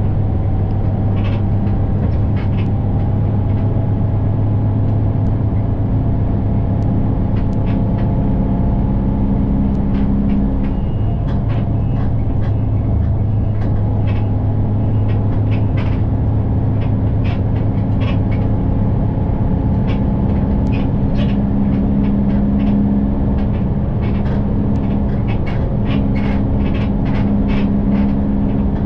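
City bus engine and drivetrain running while the bus drives along, heard inside the passenger cabin, with a steady low hum whose note shifts a few times. Frequent light clicks and rattles sound over it.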